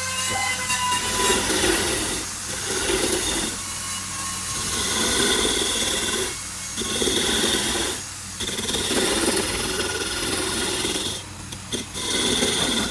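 Power tool working wood in passes of a few seconds each, broken by short pauses, over a steady low motor hum.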